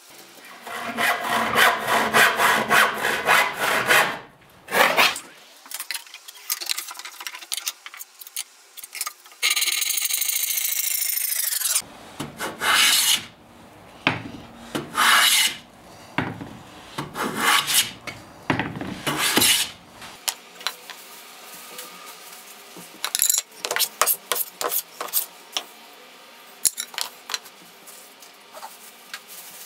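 Hand woodworking on softwood: a hand plane, or a similar hand tool, scraping along a board in separate strokes with pauses between them. Near ten seconds in, one smooth stroke of about two seconds falls in pitch at its end, and a run of light quick ticks of wood follows later on.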